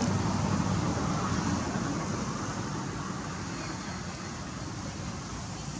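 Steady outdoor background noise, a low rumble with a hiss over it and no distinct events, easing slightly partway through.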